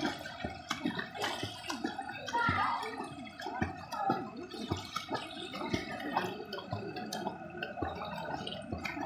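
Pool water splashing from a swimmer's kicking legs, a quick irregular run of small splashes.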